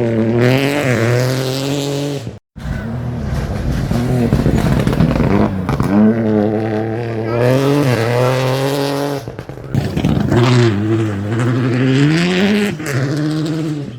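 Rally car engines revving hard, the engine note climbing and dropping with throttle and gear changes as the cars drive past. About two and a half seconds in the sound breaks off sharply and a second car takes over.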